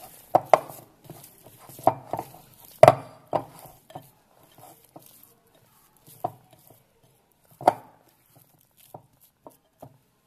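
Oiled pizza dough kneaded by hand in a glass bowl: irregular wet slaps and thuds of the dough pressed against the bowl, growing sparse and softer near the end.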